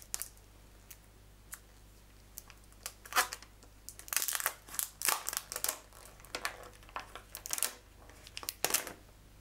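Clear plastic protective film being peeled off the back of a Samsung Galaxy A33 5G smartphone, crinkling and crackling in irregular bursts. A few scattered light ticks come first, and the crinkling is thickest from about three seconds in until shortly before the end.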